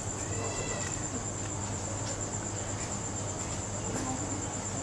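Crickets trilling steadily as one continuous high-pitched drone, over soft close-miked chewing and mouth sounds of someone eating.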